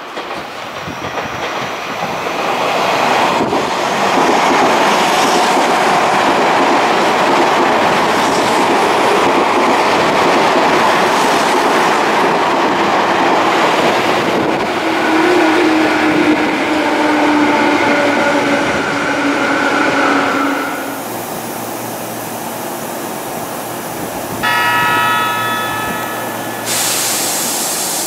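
Tobu 50090-series electric train running through a station: a loud, steady rush of wheels on rail that builds over the first few seconds. Later a steady whine rises over the rush as a train slows. Near the end comes a short run of steady electronic tones.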